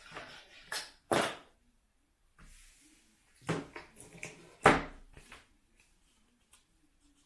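Plastic packaging and parts being handled: a run of rustles and clicks, with sharper knocks about a second in and just under five seconds in.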